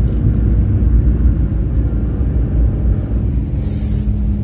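Car driving on a mountain road, heard from inside the cabin: a steady low rumble of engine and tyres. A short burst of hiss comes near the end.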